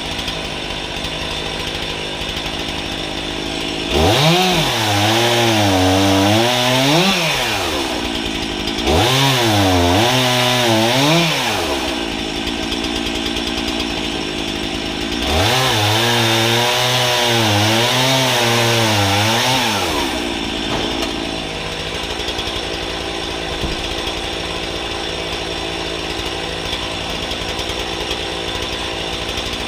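Gas chainsaw mounted on a homemade pivoting guillotine stand, bucking logs into firewood rounds. It idles, is revved up three times, and its pitch sags and recovers under load during each cut. It drops back to idle between cuts and for the last several seconds.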